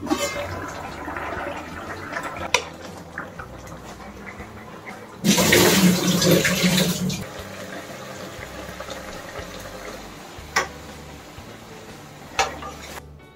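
Water poured off a bowl of raw prawns into a steel sink: about two seconds of loud splashing midway. Around it, quieter kitchen handling with a few sharp clicks of utensils.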